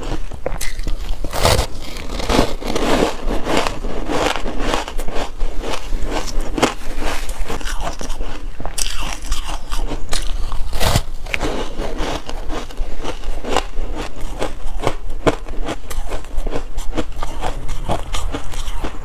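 A person biting and chewing dense reshaped purple ice coated in milk powder, close to the microphone: a continuous run of crisp crunches, with two especially sharp bites, about a second and a half in and a little past the middle.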